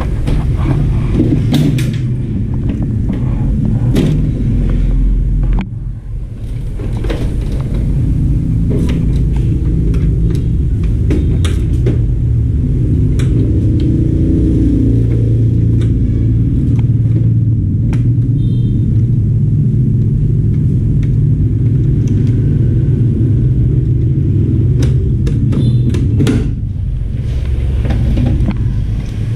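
Steady low rumble with scattered clicks and knocks, as plastic and metal appliance parts are handled. The rumble drops out briefly about six seconds in.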